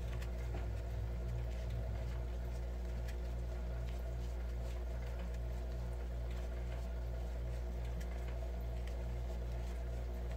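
Steady low background hum with a soft throb repeating about twice a second, and faint scattered light ticks over it.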